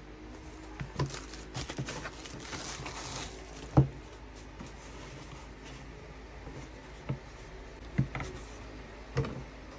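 Flat organizer panels being handled and set down on a desk: scattered knocks and light taps, with a spell of rustling about two to three seconds in and the loudest knock about four seconds in.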